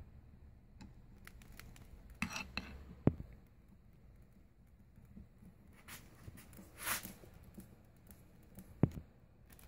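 Screwdriver driving the housing screws into a Ford 7.3L diesel starter. A few faint scrapes and clicks come from the tool turning in the screw heads, with a sharp click about three seconds in and another near the end.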